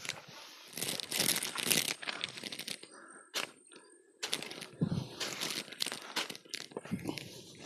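Dry grass and weeds rustling, crunching and tearing in rough bursts as vegetation is trampled and pulled up. There are two stretches of it, with a quieter pause of about two seconds between them that is broken by a single sharp crack.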